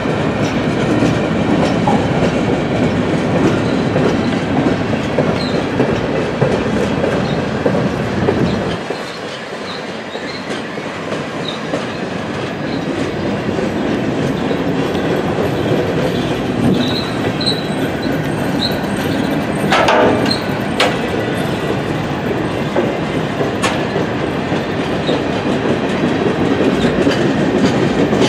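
A long string of open-top work-train cars rolling past at speed: a steady rumble with the clatter of wheels over the rail, and a few short high wheel squeals in the second half. The sound drops in loudness about nine seconds in.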